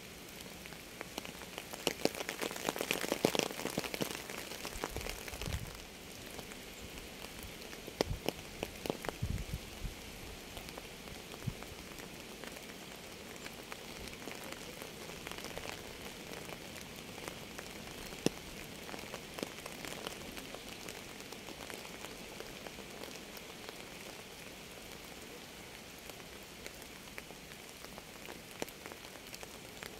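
Rain falling steadily, with many separate drops ticking sharply close by. It grows heavier about two to five seconds in, and a few low thuds come soon after.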